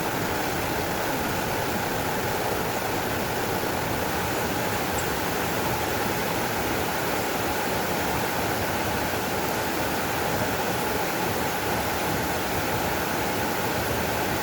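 Steady rush of flowing water, like a stream or small waterfall, unchanging throughout.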